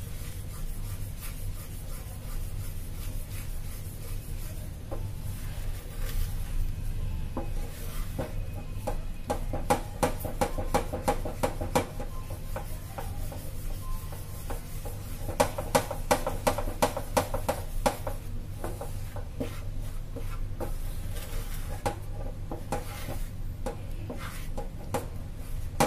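Wooden spatula stirring and scraping thick custard around a pan, in repeated scraping strokes that come in spells, over a steady low hum. The custard is being stirred continuously as it cooks and thickens.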